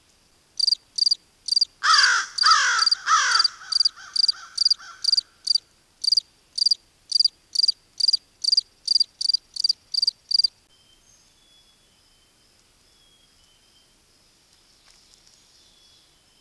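American crows cawing three times about two seconds in, over a long run of evenly spaced high-pitched chirps, about two a second, that stop suddenly about ten seconds in. After that only faint, distant small-bird calls remain.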